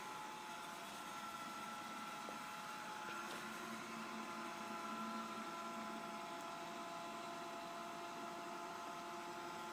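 Xiaomi robot vacuum whirring steadily with a few steady whining tones from its motors while it relocalises itself on the way back to its charging dock.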